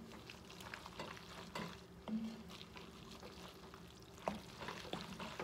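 Wooden spoon stirring thick pasta and broccoli in an enameled cast-iron Dutch oven: soft scrapes and small knocks against the pot, with a faint sizzle of the food cooking underneath. One sharper knock comes about four seconds in.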